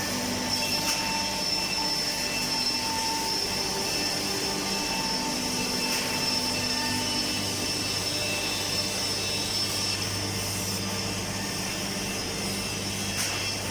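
Woodworking machinery on a wooden-door production line running steadily: a constant drone with a low hum and a high whine held throughout.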